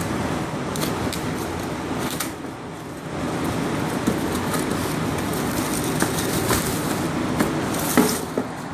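Cardboard box and paper packing rustling, with a few sharp clicks and taps as the new axle is unpacked, the loudest near the end. A steady rushing noise runs underneath, dipping for a moment about two seconds in.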